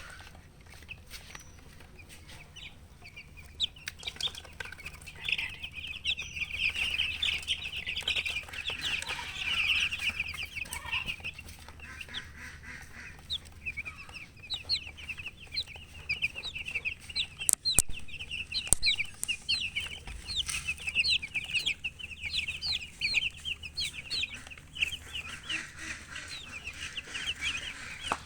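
A brood of baby chicks peeping: many short, high-pitched peeps overlapping into a busy chorus, sparse in the first few seconds and then filling in. A single sharp click comes about two-thirds of the way through.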